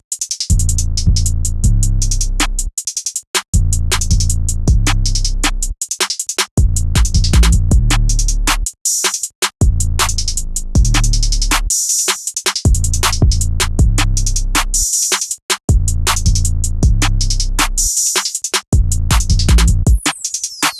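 Trap beat from a drum machine: deep 808 bass notes under a looped sample, with rapid hi-hat ticks and rolls, stopping briefly every few seconds. A falling sweep comes in at the very end.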